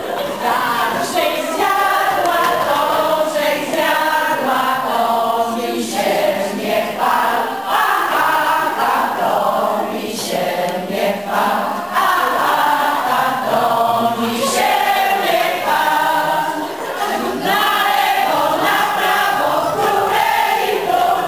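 A group of people singing a song together in chorus, with short breaks between phrases.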